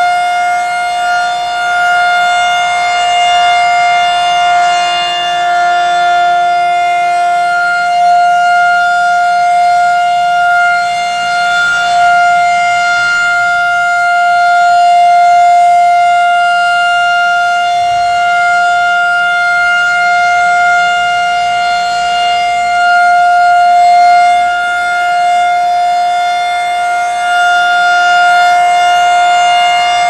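Rotating-horn outdoor warning siren sounding a steady alert tone for its monthly test. The pitch holds level, while the loudness swells and fades slowly as the horn turns.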